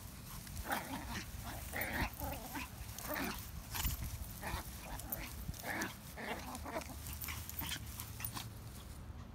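Two Chihuahuas play-fighting, giving short, irregular bursts of small-dog vocal noise with scuffling clicks; the bursts stop shortly before the end.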